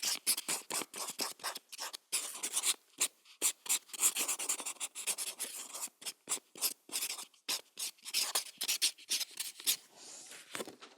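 Felt tip pen writing on paper: quick, irregular scratchy strokes of the tip across the sheet, several a second, easing into a softer stroke near the end.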